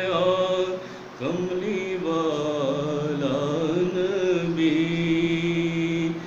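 A man reciting a naat unaccompanied: a single male voice singing long, wavering held notes. There is a brief pause about a second in, and a long steady note near the end.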